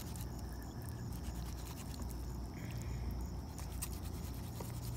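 A knife scraping and slicing channel catfish meat off the thin skin against a wooden board, with a few small clicks.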